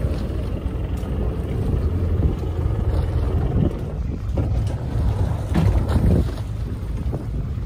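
Wind buffeting the microphone over a steady low rumble aboard a small fishing boat at sea, with a few short louder gusts or splashes in the second half.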